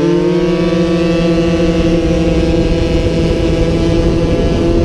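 50cc racing motorcycle engine heard on board, settling into a steady high note at full throttle, with wind and road rumble beneath.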